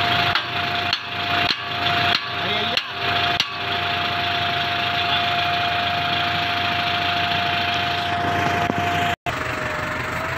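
Hammer blows on the steel guide tines of a tractor-mounted rake implement, about seven strikes a little over half a second apart in the first few seconds, as the tines are adjusted. Under them a New Holland tractor engine idles steadily, and after a brief cut near the end the tractor is heard running with the implement.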